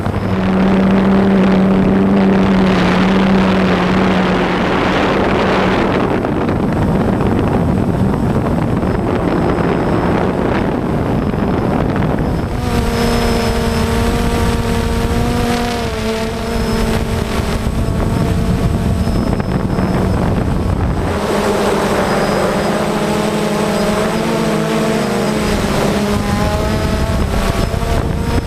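DJI Phantom quadcopter's motors and propellers buzzing in flight, heard from its own onboard camera: a steady multi-tone hum over wind rush that shifts pitch as the drone manoeuvres, changing noticeably about halfway through and again about two-thirds of the way in.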